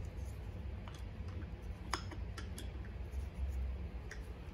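A few faint, scattered metallic clicks and taps as a two-stroke bicycle engine's side cover and bolts are handled with hand tools.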